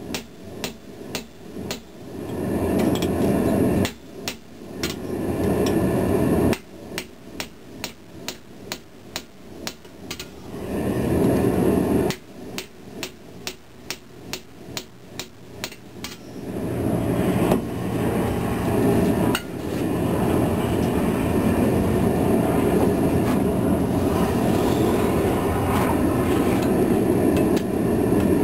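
Hammer striking a handled hot-cut chisel through red-hot steel on an anvil, cutting the forged blade off its bar: runs of sharp metallic blows about two a second, with short pauses between them. The blows stop about 16 seconds in, and a steady rushing roar carries on after them.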